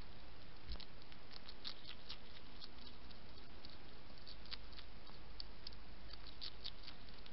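European hedgehog feeding close to the microphone: irregular crisp clicks and crunches of chewing over a steady hiss.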